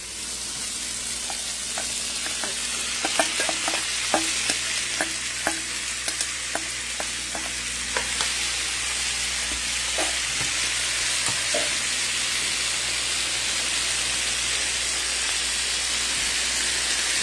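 Shrimp sizzling steadily in hot oil in a frying pan, with a utensil stirring and clicking against the pan for the first twelve seconds or so.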